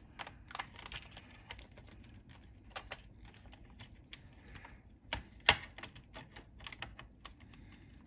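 Scattered small clicks, taps and rustles of hands working a screw, wires and the power switch into an Amstrad CPC464's plastic case, with one sharper click about five and a half seconds in.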